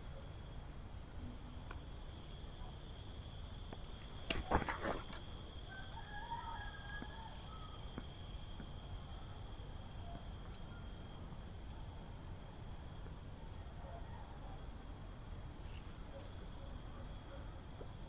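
Steady chorus of insects, several high, even buzzing tones held throughout. About four seconds in comes a brief cluster of knocks and clicks, the loudest thing heard.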